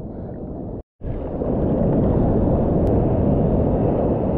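Steady low wash of wind and sea water on a GoPro's microphone held at the water's surface, cut off to silence for a moment just under a second in before it resumes.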